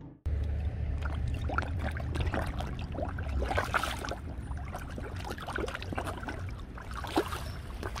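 A crowd of koi and Amur carp feeding at the water surface: a busy, continuous patter of small splashes and gulps as the fish jostle, over a low steady rumble.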